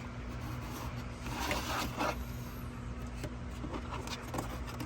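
Rubbing and scraping from handling the plastic engine air box and its filter, with a few light clicks, over a steady low hum.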